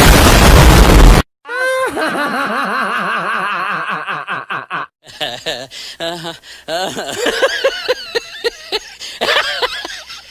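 A string of meme sound-effect clips. It opens with a very loud, distorted blast lasting about a second. After a brief gap comes a wavering, wobbling voice-like tone for about three seconds, then a run of short choppy vocal snippets and laughter.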